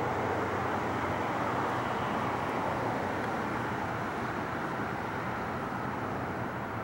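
Jet engine noise of a Boeing 757 on final approach, a steady broad roar that fades slightly as the plane flies away.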